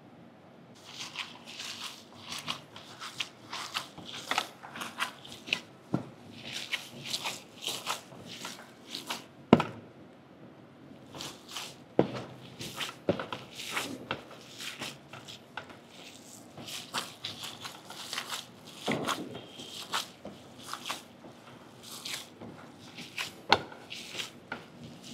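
Gloved hands kneading and squeezing raw ground veal mixed with chopped onion and spices in a metal tray: irregular wet squishing and crackling, starting about a second in, with a short pause near the middle and a few sharp clicks.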